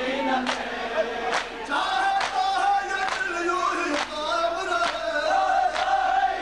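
Male reciters singing a nauha (Shia lament) with a crowd of mourners chanting along, over sharp matam strikes in unison about once a second.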